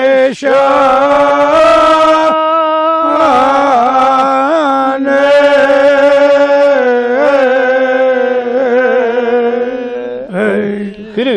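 A man singing a Kashmiri marsiya, an elegy for Imam Hussain, solo, in long drawn-out notes that waver and bend. There is a short break for breath about two and a half seconds in.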